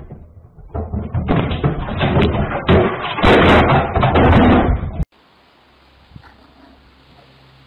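Loud banging and crashing as a flat-screen TV and the things on its stand are knocked over onto a tile floor, a run of knocks and clattering impacts that cuts off suddenly about five seconds in.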